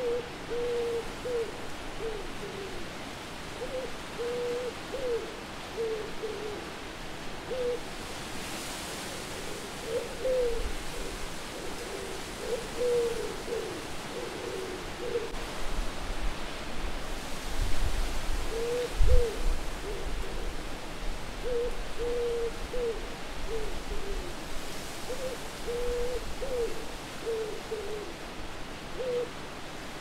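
Owls hooting over and over, short calls one after another, over a steady hiss of wind. Low rumbling gusts of wind rise in the middle, peaking a little before two-thirds of the way through.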